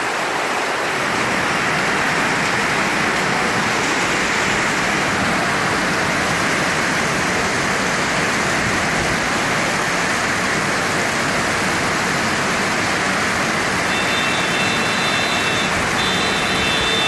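Heavy rain pouring down, a steady dense hiss. A thin high whine comes in about three seconds before the end.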